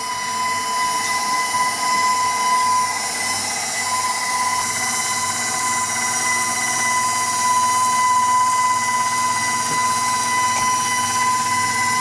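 KitchenAid Professional 600 stand mixer motor running at a steady speed, driving the food grinder attachment as beef is fed through for a second grind. The sound is a steady, high whine.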